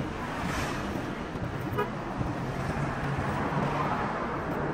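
Road traffic noise with a vehicle horn sounding briefly.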